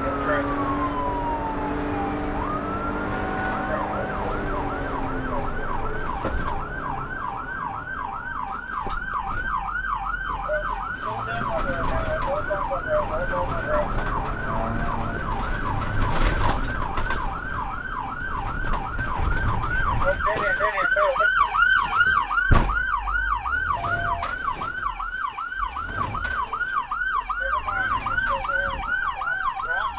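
Police car siren sounding in a slow wail, then switching about four seconds in to a rapid yelp that keeps going. A single sharp thump about two-thirds of the way through.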